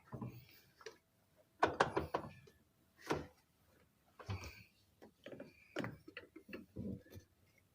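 Scattered clicks and knocks of plastic being pried and handled as the top panel of a Samsung washing machine is worked open, with a small cluster near two seconds in and several more later on.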